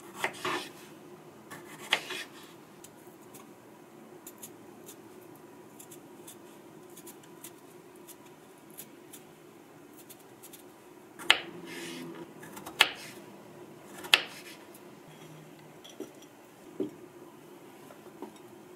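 Kitchen knife cutting through plums on a wooden cutting board: several sharp knocks of the blade against the board, spaced apart with quiet handling between.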